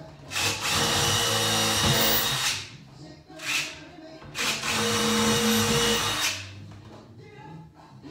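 Handheld power drill running in two bursts of about two seconds each, with a short half-second blip between them, its motor pitch holding steady through each run.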